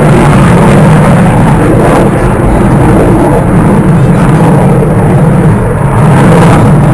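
Aerobatic display aircraft flying overhead: a loud, steady engine noise with a deep rumble, heavily overloading the recording.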